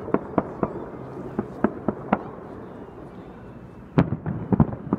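Festive fireworks display going off: a quick series of sharp bangs over the first two seconds, then a tighter cluster of bangs about four seconds in.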